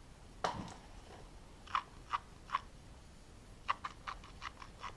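Light clicks and ticks of small parts being handled during wiring work: one about half a second in, three more spread over the next two seconds, then a quick run of about seven near the end.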